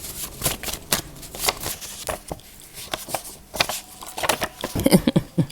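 Oracle cards being shuffled and handled, a run of irregular soft clicks and rustles.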